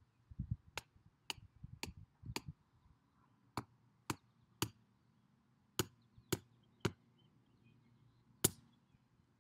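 Hammer striking the top of a wooden garden stake to drive it into the soil: sharp knocks in runs of three or four, about two a second, the last one near the end the loudest.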